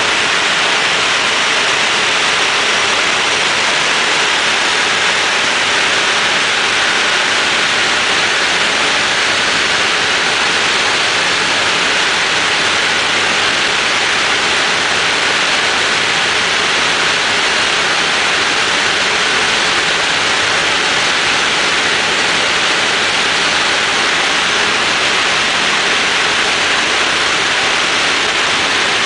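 Loud, steady rush of air through the open bomb bay of a B-17 bomber in flight, over the low drone of its radial engines.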